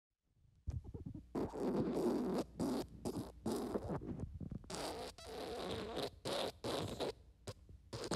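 Fart sound effect: a run of sputtering farts, some short and some longer, one after another, starting just under a second in.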